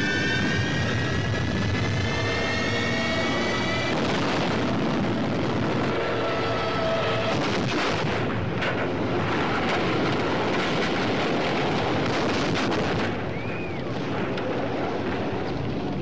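Air-raid bombing: a rising wail in the first few seconds, then a dense, continuous din of explosions and anti-aircraft fire with sharp blasts around the middle. The din drops away about 13 seconds in.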